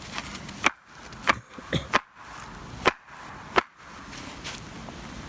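Axe chopping dense hardwood on a splitting log: about six sharp strikes at uneven intervals over the first four seconds.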